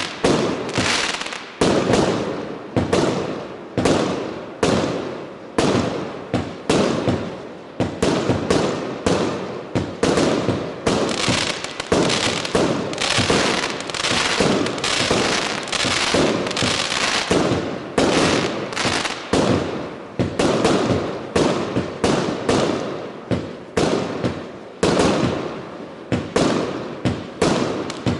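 Consumer fireworks firing in a continuous barrage: a steady string of sharp bangs, about two a second, each trailing off before the next.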